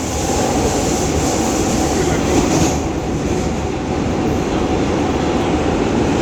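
A New York City subway R train running at speed between stations, heard from inside the car: a steady rumble and rush of wheels on the rails.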